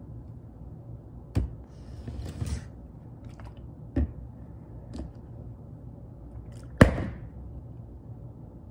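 Plastic water bottle knocking on a hardwood floor: several sharp thuds, the loudest just before seven seconds, with a short rustle around two seconds in.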